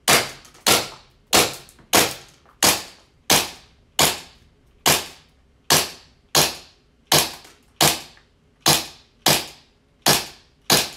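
G&G Piranha SL gas blowback airsoft pistol, charged with green gas, firing about sixteen sharp shots in steady succession, a little under a second apart, each crack from the gas blast and the slide cycling.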